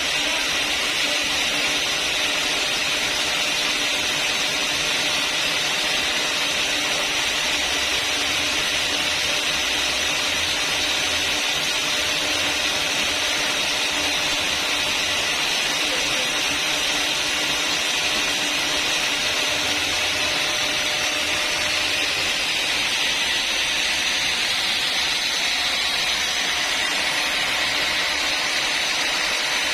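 Sawmill saw running steadily through a log on a long lengthwise cut: a continuous, unbroken noise with no pauses.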